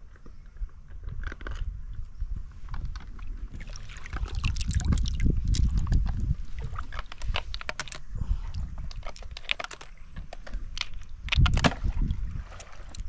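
Hands sloshing and splashing through shallow river water while gathering freshwater snails, with many small sharp clicks and knocks as the snails are picked up and handled. Near the end come a few louder knocks and rustles as the snails go into a plastic bottle.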